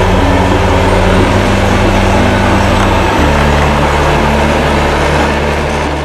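Loud, steady diesel-style truck engine sound from RC construction trucks, holding a few steady pitches with small steps between them, fading out near the end.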